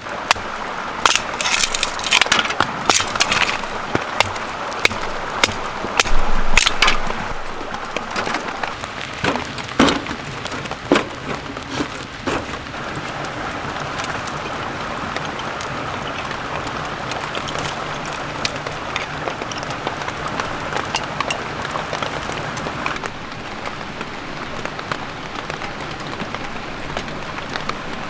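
Light rain pattering on a tent, with sharp clicks and knocks of handling in the first dozen seconds.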